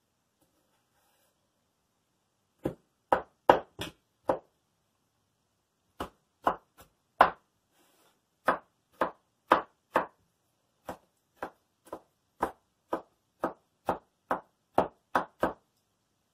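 Kitchen knife chopping Roma tomatoes on a wooden cutting board: a quick run of five strokes, a short pause, then steady strokes about two a second.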